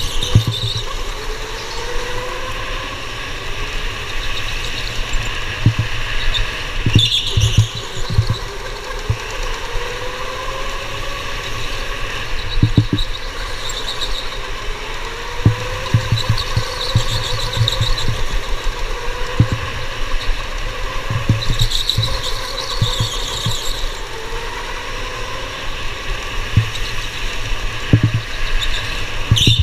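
Electric go-kart motor whining, its pitch rising and falling over and over with speed, and tyres squealing in the corners several times. Short low thumps come through throughout.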